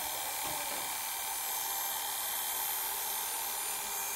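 Electric pet clippers running steadily with a high, even whine as they shave fur from a dog's leg.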